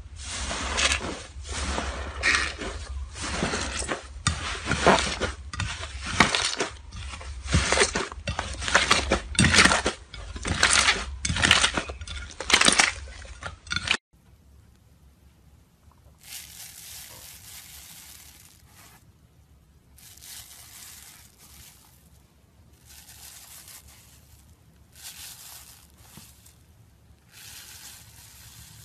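Slime being squeezed and kneaded by hand: dense crackling and popping for the first half, then a sudden cut to a quieter clip of soft squishes and swishes every second or two.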